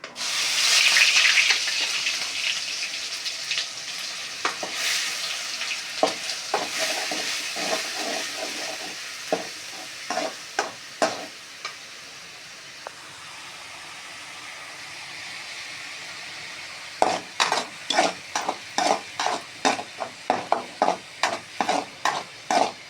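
Ground onion paste dropped into hot oil in a kadai, sizzling loudly at first and settling into a steady frying hiss. A spoon stirs and scrapes against the pan, turning into quick regular strokes, about two a second, near the end.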